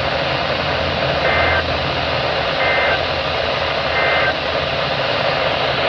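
Emergency Alert System end-of-message signal on a NOAA Weather Radio broadcast: three short bursts of screechy two-tone data, about a second and a half apart, over a steady hiss of radio static.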